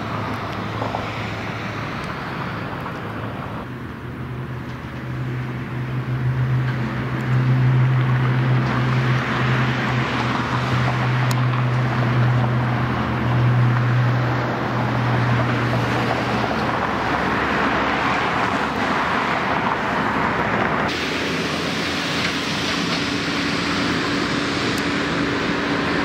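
Road vehicle noise: a car engine hum with steady road and tyre noise, the engine hum swelling for several seconds in the middle and the sound changing abruptly about 21 seconds in.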